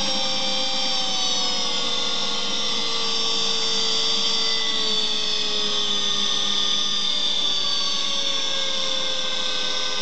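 Silverson high-shear mixer's electric motor and homogenizing head running in water with a steady whine, its pitch slowly falling as the speed is turned down towards quarter speed.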